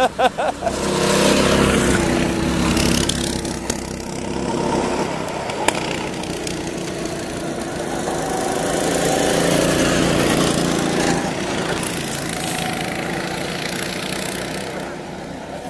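Go-kart engines running as karts drive past on the track, swelling as a kart goes by about a second in and again around eight to ten seconds, then fading. A single sharp click about six seconds in.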